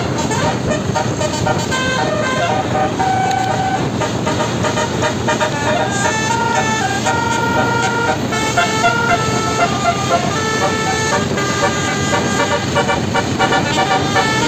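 A bus's Basuri 12-note "telolet" horn playing a continuous melody of short notes that step up and down several times a second, over a steady din.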